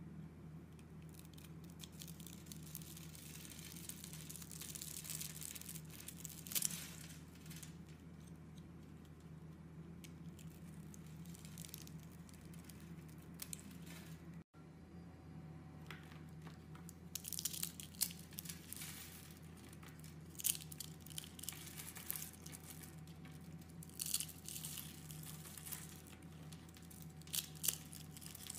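Utility-knife blade cutting through a bar of dry, grid-scored soap, with crisp crackling and clicking as tiny soap cubes break off and patter onto a pile, in irregular spurts of sharp crackles.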